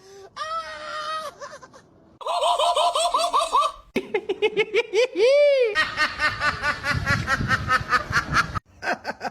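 Laughter-like vocal sounds in several short segments, each cut off abruptly, with rapid pitched pulses like a giggle or cackle.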